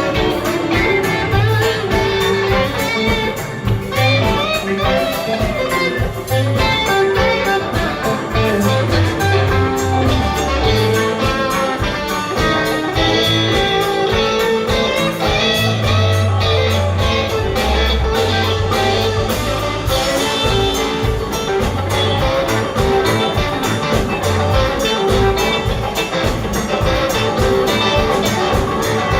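Live band playing an instrumental passage of a blues song: guitar over a moving bass line and drums keeping a steady beat.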